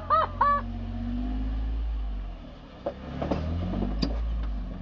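Jeep Wrangler engine pulling at low speed as it crawls up steep sandstone, easing off about two seconds in and then revving up again, with a few sharp knocks as the tyres and chassis work against the rock.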